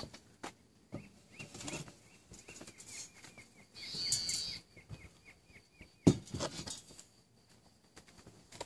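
Faint rustling and handling knocks, with a sharp knock about six seconds in. A quick run of about eight short, high bird chirps comes about two seconds in.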